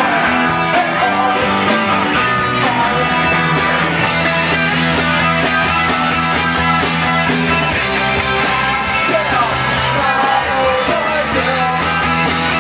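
Live rock band playing with electric guitars, bass and drums keeping a steady beat, and a singer's voice in the mix.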